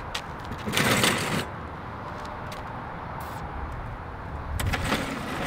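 Concrete blocks scraping as they are pushed and shifted on a table: one rough scrape about a second in, a shorter one near the end, and a few light knocks between.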